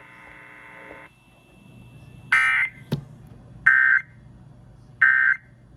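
Emergency Alert System end-of-message signal: three short, identical screeching digital data bursts (SAME 'NNNN' code) about a second and a half apart, marking the end of the warning. It is preceded by a steady buzz that cuts off about a second in.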